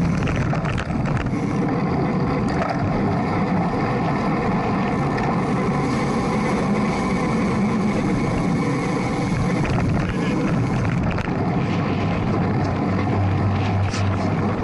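Steady wind and road rumble picked up by a camera mounted on a racing bicycle's handlebars, riding in a pack at about 20 to 24 mph.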